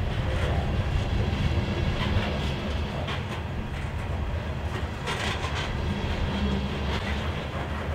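Covered hopper cars of a freight train rolling past, a steady low rumble of steel wheels on rail broken by a few sharp clacks.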